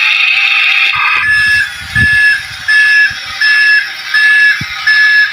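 A steady high hiss that cuts off about a second in, followed by an electronic beep repeating evenly about every three-quarters of a second.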